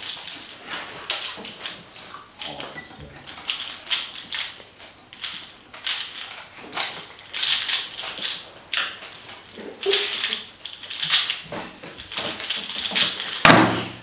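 3x3 speed cube being turned at speed: a continuous fast clatter of plastic layer clicks and rattles. About thirteen and a half seconds in, a sharp slap as the cube is put down and the hands hit the stackmat timer to stop it.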